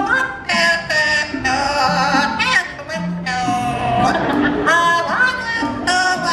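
A trained parrot singing a human song in a warbling voice, with bending pitched notes of up to a second each over a musical backing.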